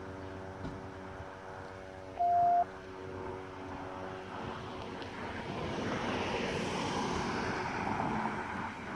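Street traffic: a steady engine hum, then vehicle engine and tyre noise that grows louder through the second half. One short, loud, high beep sounds a little over two seconds in.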